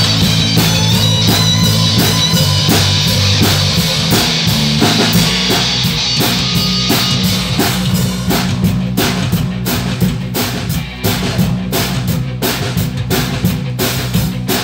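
Live rock band playing an instrumental passage: electric guitars over a drum kit keeping a steady beat. Held higher notes ring over the first five seconds or so, then the drum beat stands out more.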